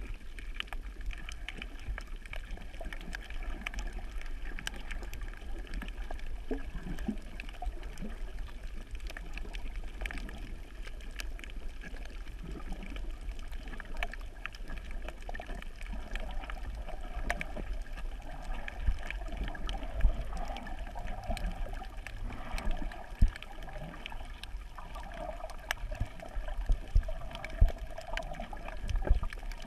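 Underwater water noise picked up by a camera moving through the sea: a steady rushing and gurgling wash with scattered faint clicks and several low thumps in the second half.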